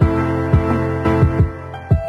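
Background music: sustained chords over a repeated kick drum beat.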